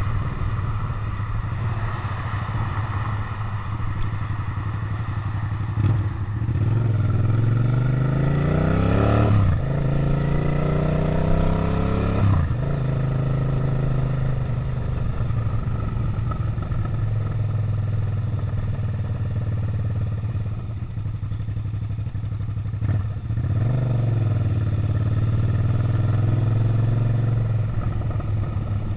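Suzuki SV650's V-twin engine on the move, heard from the rider's seat. It runs steadily at first, then the note rises under throttle about six seconds in and drops sharply at an upshift, rises again and drops at a second shift. It settles back to a steady cruise, with one shorter rise of throttle later on.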